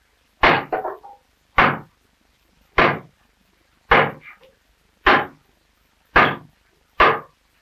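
A cooper's hand axe chopping into a rough green-oak stave blank, hewing it to shape. Seven strikes at an even pace of about one a second, a few followed by a smaller knock.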